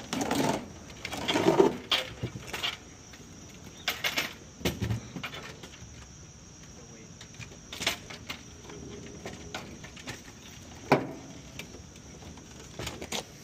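A cardboard-boxed outdoor heat pump condenser being tipped and loaded onto a metal hand truck: scattered thumps, scrapes and knocks of the box and dolly, with a sharp knock a couple of seconds before the end.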